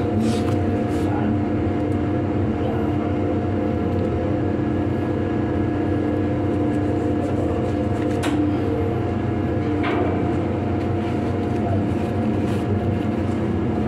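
Steady drone of a ship's running engines, several held tones over a deep hum, heard from inside the lube oil sump tank under a stopped main engine. A few brief knocks and rustles from crawling through the tank sound over it.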